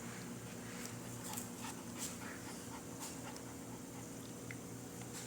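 A dog panting softly in quick, irregular breaths.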